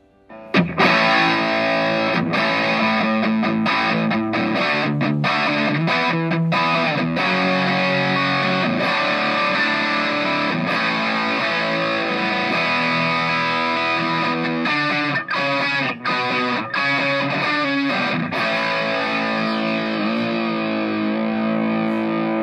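Electric guitar played through a Blackstar ID Series combo amp with a 12-inch speaker, with distortion: loud sustained chords and riffs, briefly stopped a few times. It starts about half a second in.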